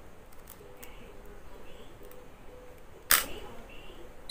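Sony A6000 mirrorless camera's shutter firing once about three seconds in, a short sharp click, with a brief high beep right at the end.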